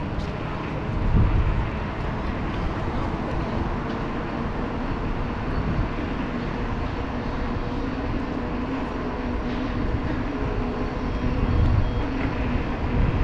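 Steady wind rushing over an action camera's microphone while cycling, with a faint low hum running under it.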